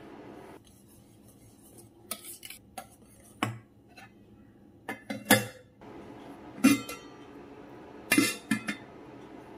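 Enamelled saucepan and its lid being handled, with a metal whisk against the enamel: a series of separate sharp clinks and knocks, in small clusters.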